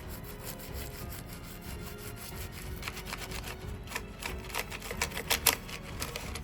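Rubbing and scraping strokes of a hand tool working on a small hard part, growing sharper in the second half with a couple of louder scrapes near the end.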